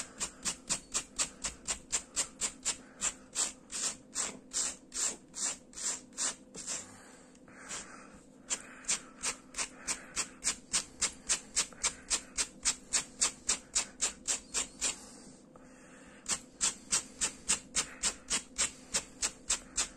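A brush raking through the acrylic yarn hair of a crocheted dog, brushing out the strands into fluffy fur in quick scratchy strokes, about three a second. The strokes come in three runs, with short pauses after about seven seconds and again around fifteen seconds.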